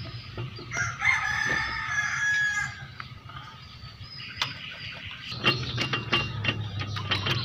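A rooster crows once, a call of about two seconds starting about a second in. From a little past halfway come quick metallic clicks and taps of hand tools on the engine.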